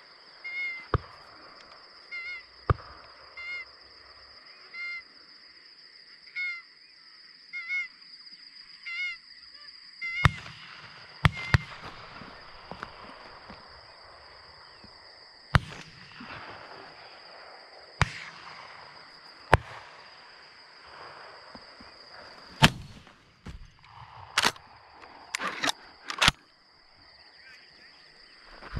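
Magpie geese honking, short calls repeating about once a second, then from about ten seconds in a string of 12-gauge shotgun shots, roughly ten in singles and quick pairs, some loud and close and some fainter, over a steady high-pitched drone.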